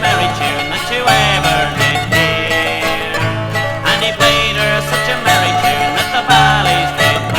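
Bluegrass band playing an instrumental break: quick banjo picking over guitar and a steady bass line, with some bending lead notes.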